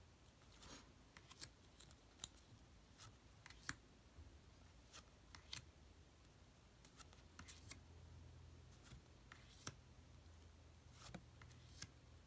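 Paper tarot cards being flipped one at a time from a hand-held deck onto a pile: faint, irregular clicks and soft slides, over a faint low hum.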